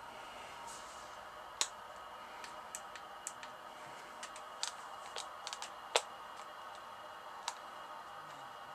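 Scattered small clicks and taps of fingers pressing the front-panel buttons and handling a CB radio, about seven or eight in all, the loudest about a second and a half in and about six seconds in, over a faint steady hiss.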